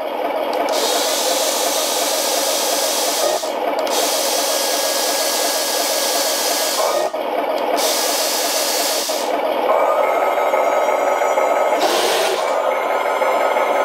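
Full-metal RC model tanks running: a steady, busy mechanical whir, broken by four hissing surges lasting one to three seconds each.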